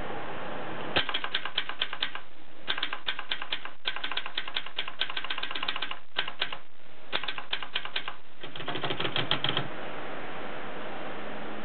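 Brother 220 typewriter being typed on: runs of quick keystroke clacks with short pauses, starting about a second in and stopping a couple of seconds before the end, over a steady background hiss.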